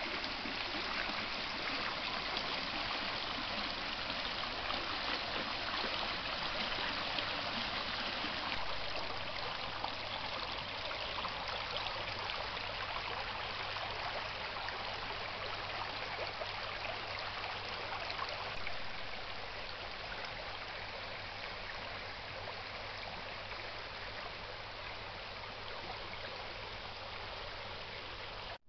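Shallow stream running over a pebble bed: steady trickling and babbling water, easing slightly in the second half.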